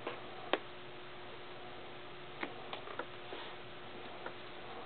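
Sharp light clicks and taps from a cat batting at a dog harness: one loud click about half a second in, a quick cluster of several around the middle, and one more near the end, over a faint steady hum.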